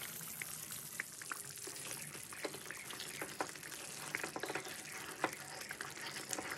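Thick curry gravy bubbling in a kadai: a steady sizzle with many small, irregular pops. Later a wooden spatula stirs through it.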